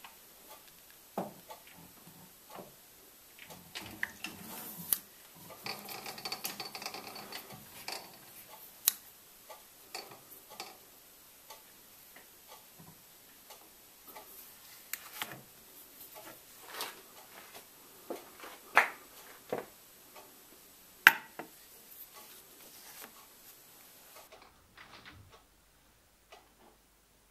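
Scattered, irregular metallic clicks and knocks from hand work on a lathe, as a round workpiece is clocked true in a four-jaw chuck against a dial indicator. There is a cluster of rattling around six to eight seconds in and two sharper knocks a little before the end.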